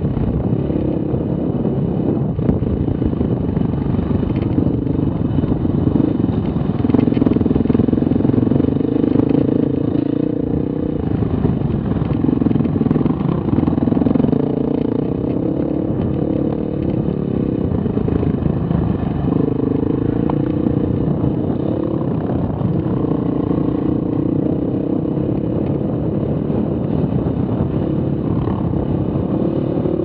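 Dirt bike engine running steadily on a trail ride, with the throttle opened more in two stretches, about a quarter of the way in and again past the middle.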